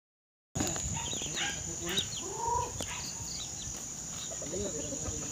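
Chickens clucking in short calls after a brief silence at the start, over a steady high-pitched insect drone.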